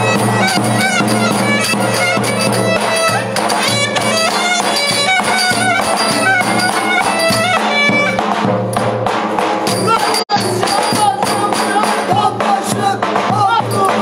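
Turkish folk dance music: a clarinet plays a fast, ornamented melody over a drum beat. The sound cuts out for an instant about ten seconds in.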